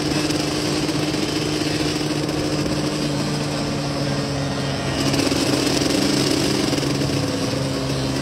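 Dirt bike engine running steadily at cruising speed, heard up close from on the bike, with wind and road noise; it gets a little louder about five seconds in.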